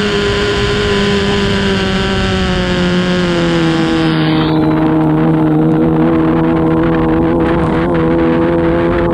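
Formula 2500 race boat's engine running hard at a high, steady pitch just after the launch, settling slightly lower about three seconds in. A loud hiss of water spray over it stops abruptly about four seconds in.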